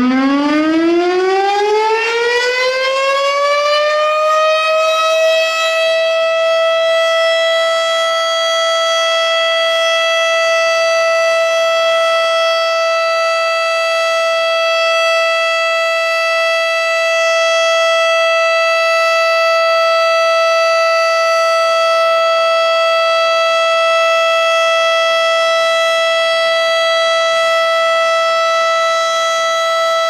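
Federal Signal STH-10 outdoor warning siren, driven by a Valley motor, winding up from a low pitch and levelling off about five seconds in, then holding one loud steady tone: the steady alert signal of a scheduled siren test.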